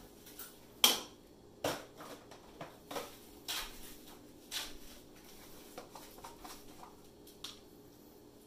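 Irregular knocks and clatters of hard objects, about eight over several seconds, the loudest about a second in.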